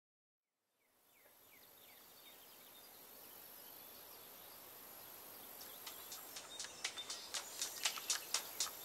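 Outdoor ambience fading in from silence: a few short falling bird chirps over a steady high hiss. From about five and a half seconds a rhythmic ticking, about four a second, grows louder.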